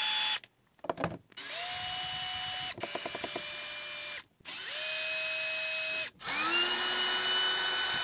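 Hilti cordless drill-driver backing screws out of a plastic impact-driver housing in short runs. There are about four bursts, each winding up to a steady whine, with brief pauses between them and a short patter of clicks about three seconds in.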